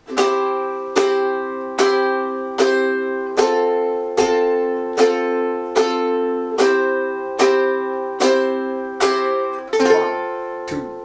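Small, thin G-Labo ukulele strummed slowly, one chord about every 0.8 s, each left to ring, with the chord changing every few strums. The last chord, about ten seconds in, rings out.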